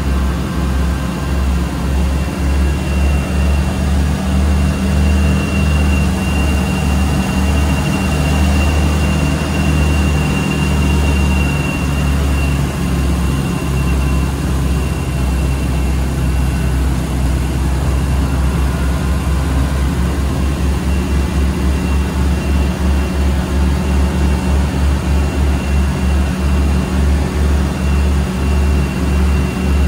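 Homebuilt twin-engine light aircraft's engines and propellers running steadily in flight, heard from inside the cockpit, with a pulsing throb that becomes faster and more even in the second half. A thin high whine sits above the engine drone, strongest in the first half.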